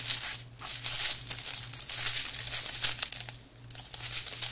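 Crinkling of a strip of small sealed plastic bags of diamond-painting drills being handled and flexed, irregular and crackly, with two brief lulls.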